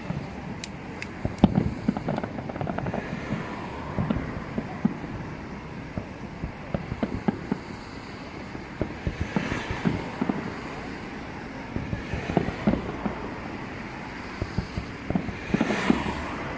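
Fireworks going off in an irregular string of sharp bangs and crackles.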